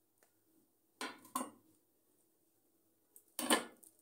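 A cooking spoon scraping against a metal pot as tomatoes are added to frying chicken: three short strokes, two close together about a second in and a louder one near the end.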